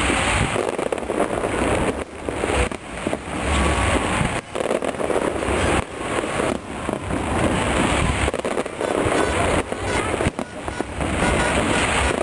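Fireworks display: aerial shells bursting in quick succession, the bangs crowding one after another with no pause.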